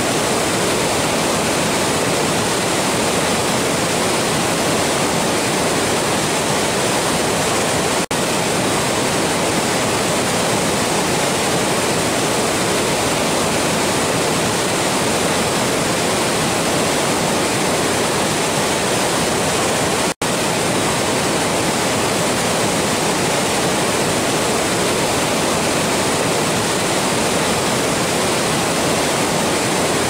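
White water rushing over rock slabs in a river cascade, a loud, even rush of noise. It cuts out for an instant twice.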